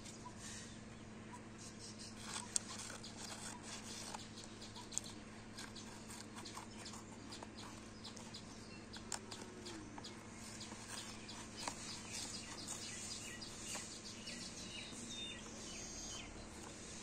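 Small scissors snipping through paper in short, irregular cuts, with a couple of sharper snips a few seconds in. Birds chirp faintly in the background.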